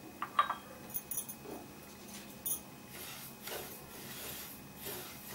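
A spatula is stirring raw white sesame seeds as they dry-roast in a non-stick pan. It clinks against the pan several times in the first two and a half seconds, then scrapes softly through the rustling seeds.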